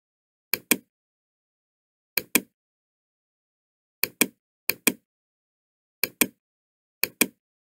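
Computer mouse button clicking, six short pairs of sharp clicks spread unevenly, with silence between them.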